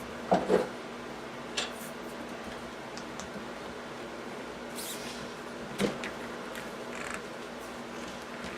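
A few light knocks and clicks of metal parts being handled as an AR-15 barrel is fitted into the upper receiver: two just after the start, another near six seconds, over a faint steady hum.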